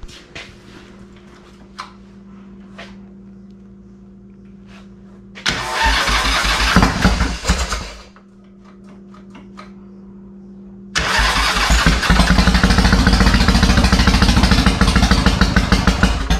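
Custom chopper's Harley-Davidson Evolution V-twin being cold-started: it fires for about two seconds and dies, then about three seconds later is started again and keeps running with a fast, loud pulsing exhaust.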